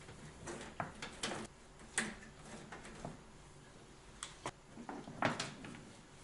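Faint, irregular clicks, knocks and rustles of a coil of insulated electrical wire being handled and unwound, the loudest cluster about five seconds in.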